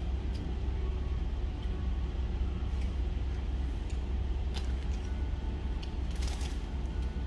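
Steady low rumble, with a few light clicks and a short hiss about six seconds in.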